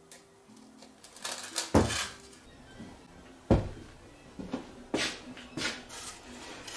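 A series of knocks and clatters of things being picked up and set down on a workbench, the loudest about three and a half seconds in, with faint background music underneath at the start.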